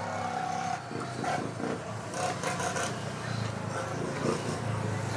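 A steady low engine hum, as of a vehicle idling, under scattered light knocks and clatter from hands-on work.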